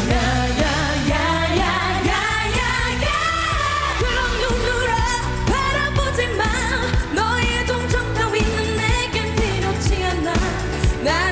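Female vocalists singing a dance-pop song live into handheld microphones, belting powerfully over a band backing with a steady beat.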